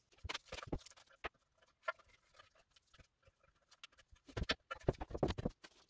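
Hands tearing and pressing tape onto a small steel motorcycle fuel tank, heard as scattered crackles and clicks, which grow busier in the last second and a half as the tank is handled and taped.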